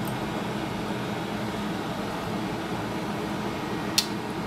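Steady low hum and hiss throughout, with one sharp click about four seconds in as copper wire links are pressed into place on an 18650 cell pack.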